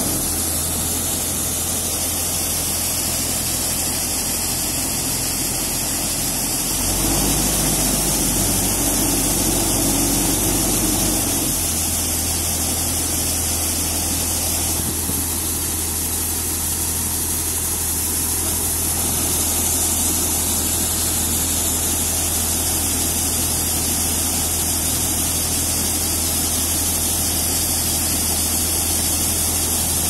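Preet 849 combine harvester running steadily while its unloading auger pours tur grain onto a tarp: a constant engine hum under the continuous hiss of falling grain. The engine note shifts slightly about seven and twelve seconds in.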